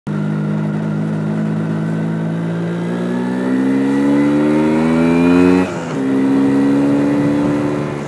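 MZ ETZ 250's single-cylinder two-stroke engine pulling under throttle on the road, its note rising steadily, then dropping sharply about five and a half seconds in as it shifts up a gear and runs on steady at a lower pitch. The bike is running slightly lean on an undersized main jet (110 instead of 125), which the owner says keeps it short of full power.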